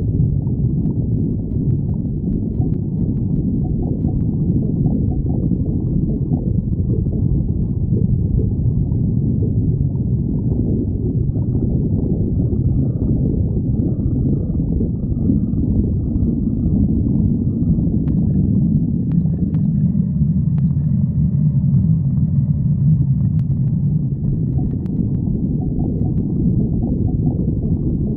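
A badger's stomach growling: a continuous low sound that never breaks.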